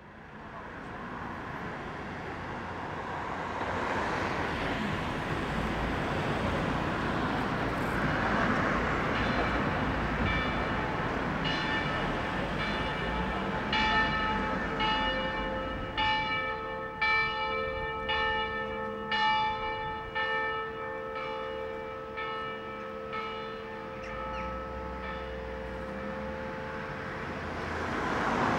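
Church bells ringing, stroke after stroke, starting about a third of the way in, crowding together in the middle and dying away near the end, over a steady rush of traffic noise.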